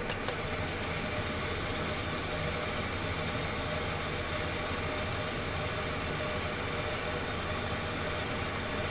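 EMS 7000SMZ2 vibrating microtome running in repeat sectioning mode, its blade head vibrating with a steady mechanical hum and a steady high whine. A short click from a control-panel button comes just after the start.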